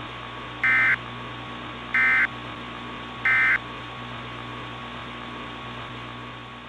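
Three short Emergency Alert System SAME end-of-message data bursts, the buzzy digital warble that closes an alert, each about a third of a second long and a little over a second apart. They sound over the steady hiss and hum of a weather-radio broadcast, which fades out near the end.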